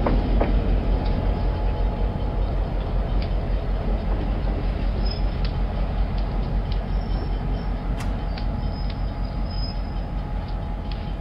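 N scale model train running on the layout: a steady rumble with scattered light clicks, slowly fading.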